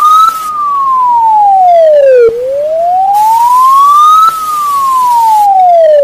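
Poland's emergency alert siren: a single pure tone slowly wailing down and up, each glide lasting about two seconds, loud and without speech over it. It stops abruptly just after the final downward glide.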